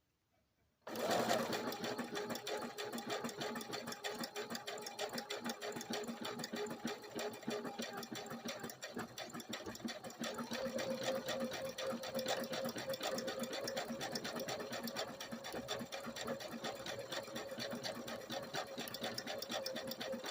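Brother SQ9285 computerized sewing machine running, its needle stitching in a fast, steady clatter over the motor's hum. It starts suddenly about a second in.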